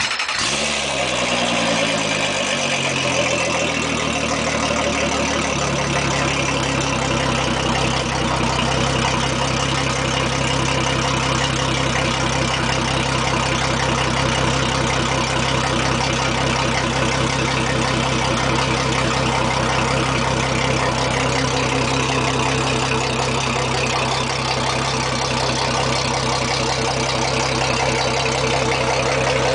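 Mercury Verado 250 hp outboard engine starting up. It catches at once and its revs settle over the first few seconds, then it idles steadily.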